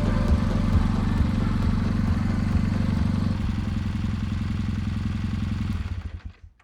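Kawasaki W650 parallel-twin motorcycle engine idling with an even low thumping, then stopping about six seconds in as it is switched off.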